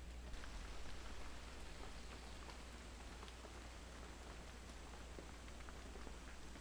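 Light rain falling steadily on foliage, with scattered single drops ticking through a soft, even hiss.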